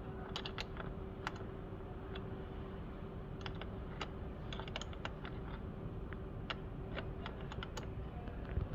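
Irregular light clicks and taps from hand work on a combine harvester's battery connections, over a steady low hum with a faint steady tone.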